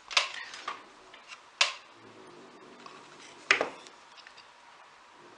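Three sharp clicks of small hand tools being handled on a workbench: one just after the start, one about a second and a half in, and one about three and a half seconds in, each quickly dying away.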